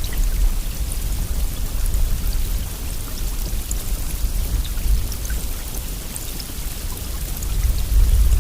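Steady rain falling, an even hiss with many scattered drop ticks over a deep low rumble.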